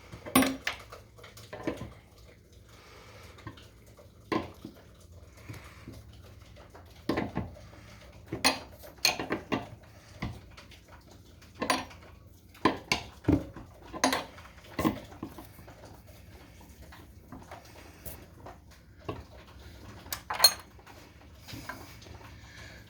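Metal hand tools clinking and knocking irregularly as a wrench works a tool clamped on a water pipe: sharp metallic clicks, some ringing briefly.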